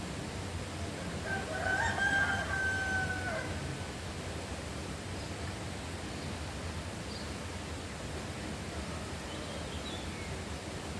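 A rooster crows once, about a second in, one long call of about two seconds, over a steady hiss of background noise. A few faint high bird chirps follow later.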